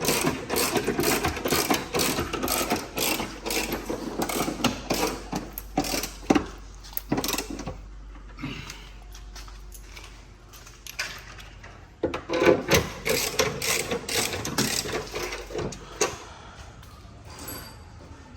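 Rapid metallic clicking and rattling from hand tools working on a metal battery-pack cover. It comes in two spells with a quieter lull in the middle and dies down near the end.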